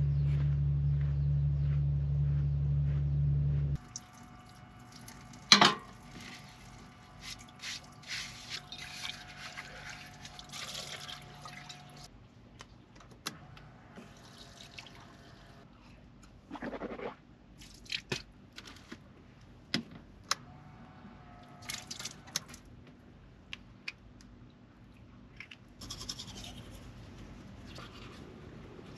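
A steady low electric hum that stops abruptly about four seconds in. It is followed by scattered clicks, knocks and clinks of dishes being handled and rinsed at a small sink, with one sharp click soon after the hum stops and a brief rush of water.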